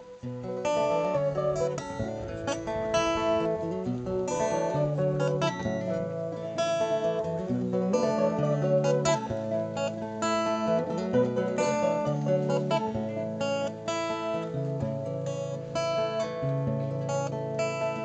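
Acoustic guitar and mandolin playing an instrumental passage of a folk-pop song without singing. Steady strummed chords under quick picked melody notes.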